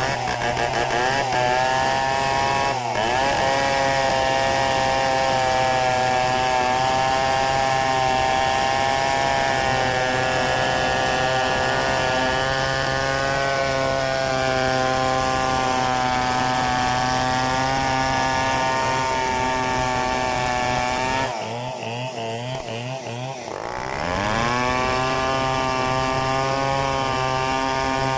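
Stihl 070 two-stroke chainsaw running at full throttle, cutting mahogany, with a steady engine note. About three quarters of the way through, it drops off throttle for a couple of seconds, then revs back up.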